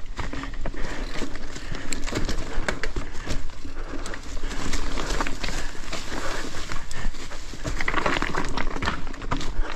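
Mountain bike rolling fast over a leaf-covered rocky trail: tyres crunching through dry leaves, with a dense clatter of knocks and rattles from the bike over roots and rocks.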